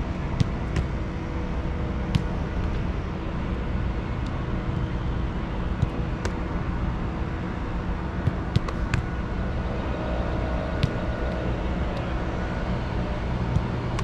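Soccer balls being kicked and caught in goalkeeper shooting drills: a scattering of short, sharp thuds over a steady low rumble.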